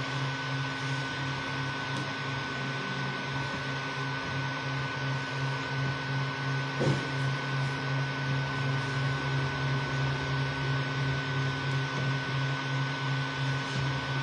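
Creality Ender 3 V2 3D printer running a spiral vase-mode print: steady hum of its fans and stepper motors, with a slight pulsing and a thin high whine. A single knock about seven seconds in.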